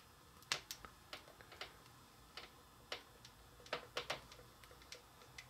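Faint, irregular plastic clicks as a Play-Doh pony press toy is pushed down, squeezing strands of Play-Doh out through the holes in its mane.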